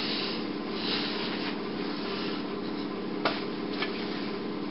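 Rustling and handling noise of cloth hand puppets being moved and raised, with a sharp tap about three seconds in, over a steady low hum.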